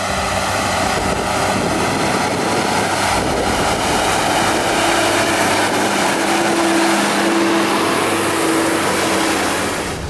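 New Holland T7 tractor pulling a loaded silage trailer through floodwater and out onto a muddy track: the engine running under load over a steady wash of splashing water and tyre noise. A steady engine tone comes up about six seconds in as it passes close.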